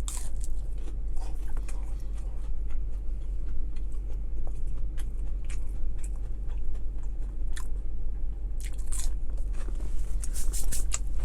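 Close-miked chewing and biting of fried McDonald's chicken nuggets, with scattered crunches and wet mouth clicks over a steady low hum.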